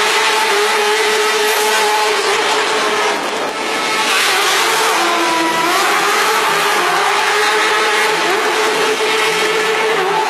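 A small car drifting in tight circles: its engine revving and its tyres squealing in a continuous, wavering squeal that rises and falls in pitch.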